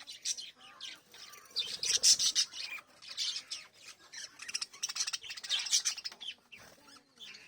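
Small pet parrots chirping and squawking in quick, harsh, overlapping bouts.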